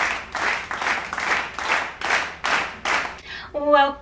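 Hands clapping in a steady rhythm, about two and a half claps a second, followed near the end by a woman's voice calling out briefly.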